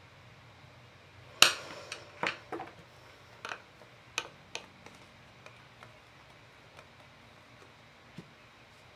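Clacks and clinks of craft tools handled on a tabletop: one sharp knock about a second and a half in, then a dozen softer, irregular taps that thin out, as a small metal mesh strainer holding flocking fiber is picked up and tapped over a cold porcelain flower bud.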